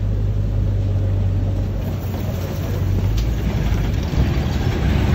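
Open-sided safari ride truck driving slowly, its engine giving a steady low drone and rumble, with a small knock about four seconds in.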